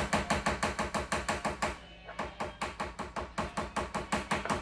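Rapid, even tapping on a bottle of thick resin, about eight knocks a second with a short pause about two seconds in, to shake the slow resin down out of the bottle.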